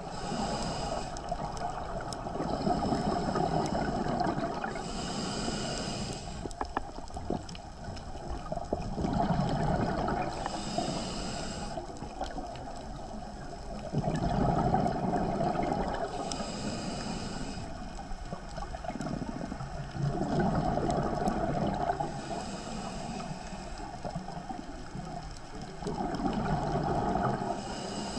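A scuba diver breathing through a regulator, heard underwater: a hissing inhale followed by a gurgling rush of exhaled bubbles, repeating about every five to six seconds, five breaths in all.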